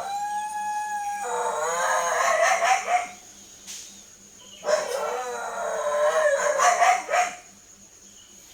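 Dog howling: two long drawn-out howls about two seconds apart. The first opens on a held steady note before wavering.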